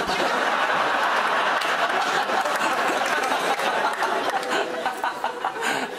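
Studio audience laughing, breaking out suddenly at the start and easing off near the end.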